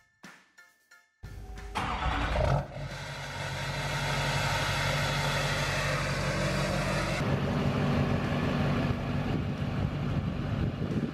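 Duramax V8 turbodiesel in a Chevy pickup starting about a second in, then running steadily at idle.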